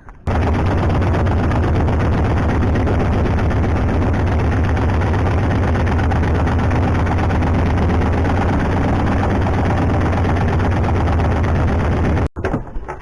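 Boat engine running steadily and loudly, with a deep, even pulsing hum. It starts suddenly just after the start and cuts off abruptly about a second before the end.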